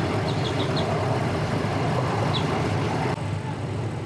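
Engines idling with a steady low rumble, from boat motors and vehicles. A few short high chirps sound in the first second and once more later. About three seconds in, the higher sounds drop away abruptly.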